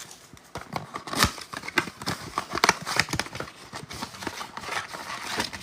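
Cardboard card box and its plastic wrap being torn open and handled, a run of irregular crinkling, tearing and small clicks.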